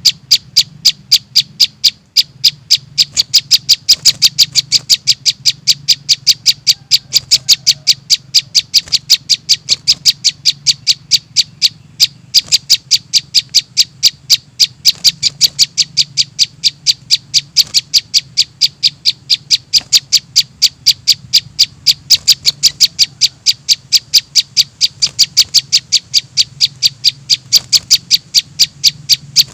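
Begging calls of young prinia chicks, sharp high chirps repeated steadily about three to four times a second, played as a lure for small birds. A faint low hum lies underneath.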